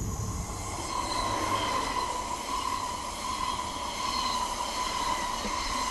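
TGV IRIS 320 high-speed test trainset passing close by: a steady rush of wheels on rail and air, with a steady high whine over it.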